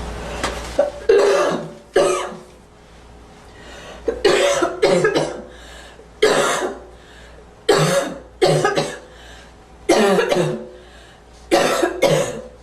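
A girl coughing again and again, single coughs and quick runs of two or three, a fresh bout every second or two.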